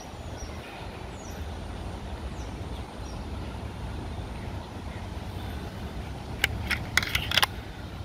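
Steady low rumble of road traffic. About six and a half seconds in comes a quick run of five or six sharp clicks.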